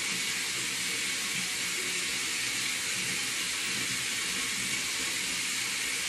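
Bathroom sink tap running in a steady hiss of water.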